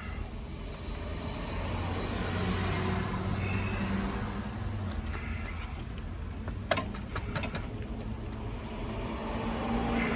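A passing car's engine hum swells and fades, then builds again near the end, with a few sharp metallic clinks in between.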